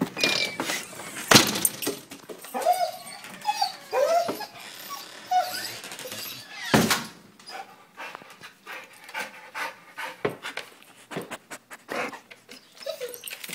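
Large dog whining and whimpering in short rising-and-falling cries, with panting, excited at its owner coming home. Two loud knocks, one about a second in and one near the middle, and many light clicks and bumps through the second half.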